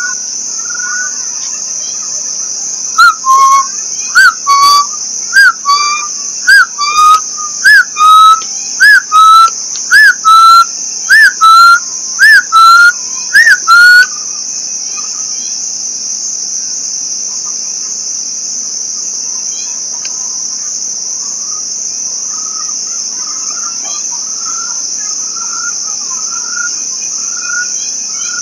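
Steady high buzz of crickets and other insects. About three seconds in comes a run of about fifteen loud whistled notes, each a short up-and-down arch, climbing slightly in pitch from note to note; it stops after about eleven seconds. Faint chirps are heard around it.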